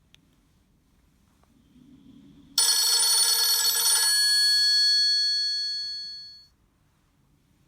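Nokia 6120 classic mobile phone sounding a bell-like ringtone through its loudspeaker. One loud struck chime starts suddenly about two and a half seconds in, then rings out and fades over about four seconds.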